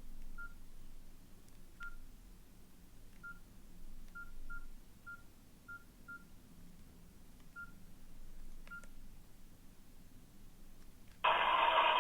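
Nokia N80 keypad tones: about ten short, single-pitch beeps at an irregular pace as keys are pressed, with faint key clicks. Near the end a much louder sound starts abruptly.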